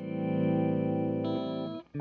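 Gibson Les Paul Custom electric guitar played through a Dr. Scientist Reverberator reverb pedal into a Marshall 1987X amp, strumming a held chord. The chord is cut off sharply near the end, and a new chord starts right after.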